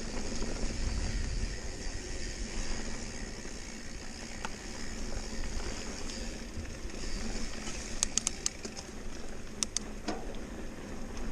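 Mountain bike riding over a dirt trail: steady rolling tyre and gravel noise with a low rumble, and a few sharp clicks about eight and ten seconds in.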